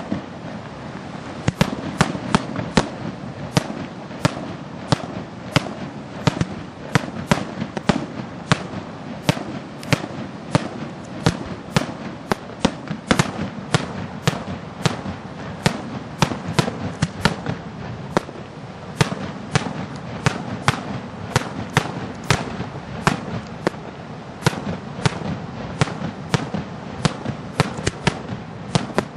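Daytime aerial fireworks shells bursting overhead as sharp bangs, in a rapid, irregular series of about two a second, over a steady din of smaller reports and echoes.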